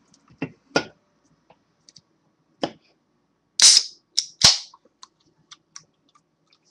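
Aluminium soda can handled with a few light clicks and knocks, then its ring-pull opened about three and a half seconds in: a loud hiss of escaping carbonation, and just after it a second sharp crack and hiss as the tab goes down. A few faint clicks follow.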